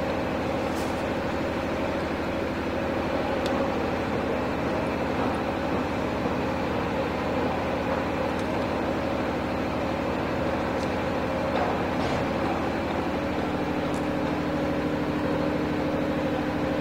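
Steady mechanical hum of a running motor or engine, with a pitched drone that grows a little stronger about two-thirds of the way in, and a few faint light clicks.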